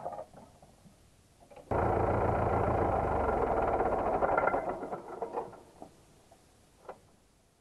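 Universal DT445 tractor's diesel engine running steadily as it pulls a disc harrow through tilled soil. It cuts in abruptly about two seconds in and fades away over the last few seconds, with one faint click near the end.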